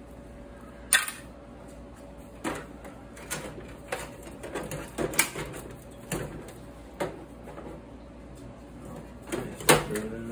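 Clanks and knocks of metal parts being handled inside a steel computer tower case while its drives are pulled: about a dozen separate sharp knocks at uneven intervals, loudest about a second in and again near the end.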